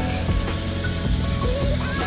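Background music with a steady beat and a sung or lead melody.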